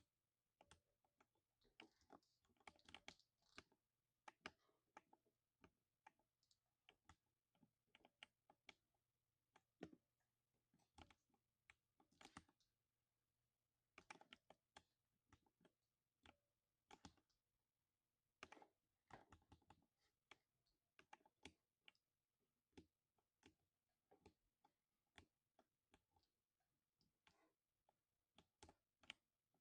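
Typing on a lubed 60% mechanical keyboard: faint, irregular keystrokes with a deep thock, some in quick runs and some single strokes with short pauses between.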